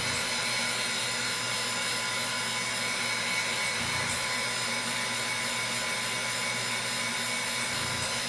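Electric heat gun running steadily, drying freshly airbrushed paint.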